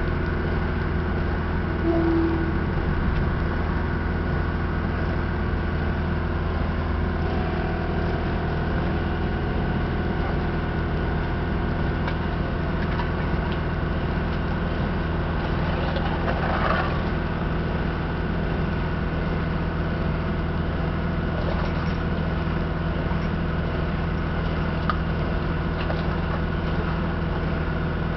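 An engine running steadily at a constant speed, with an even low hum that does not rise or fall.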